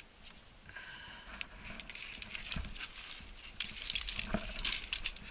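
Metal climbing gear, carabiners and cams on the rack, clinking and jingling as the climber moves on the rock. It comes as a run of quick clinks, loudest from about three and a half seconds in.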